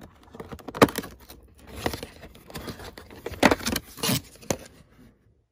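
Hands opening a cardboard advent calendar door and handling the black plastic tray behind it: a run of irregular clicks, scrapes and crinkles, the loudest snap a little under a second in.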